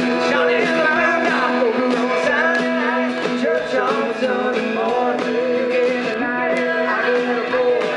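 A live band performing a song: singing over strummed acoustic guitar and a steady drumbeat, recorded from the crowd.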